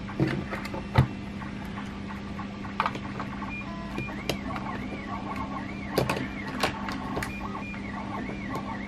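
Sharp clicks and knocks of plastic parts, a connector and wires being handled, over a steady low hum. From about three and a half seconds in, a faint whine wavers up and down over and over.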